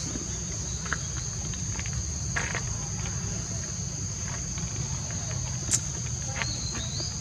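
Insects trilling in a steady, high-pitched continuous chorus, with a low rumble underneath, scattered light clicks, and one sharp click about three-quarters of the way through.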